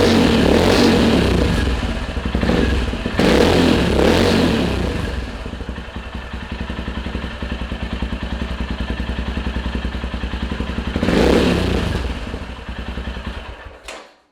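Royal Enfield Himalayan's single-cylinder engine breathing through a Red Rooster Performance slip-on exhaust, idling with a steady thump and blipped three times. The revs rise and fall each time before it settles back to idle, and the sound dies away just before the end.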